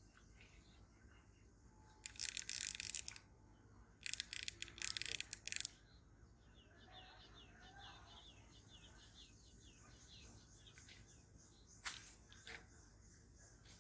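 Two loud, harsh rasping bursts of about a second and a half each, followed by a bird chirping in a quick series of short notes.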